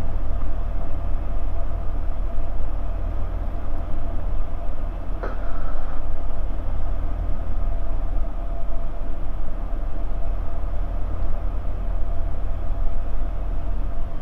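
Bristell light aircraft's engine and propeller running steadily, heard inside the cockpit, with a brief sharp click about five seconds in.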